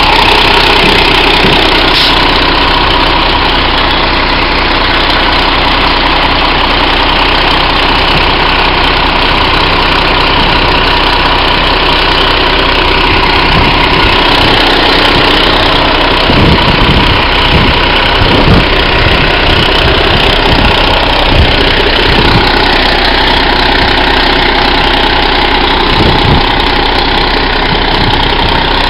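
Iveco Acco garbage truck's diesel engine idling steadily close by. About halfway through, a run of irregular knocks and clunks comes over it, with one more near the end.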